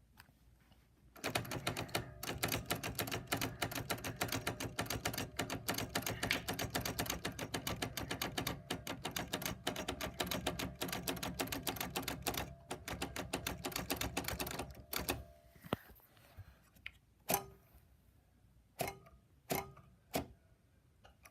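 Typewriter keys striking in a fast, continuous run of clicks for about thirteen seconds, then a handful of single key strikes spaced a second or so apart near the end.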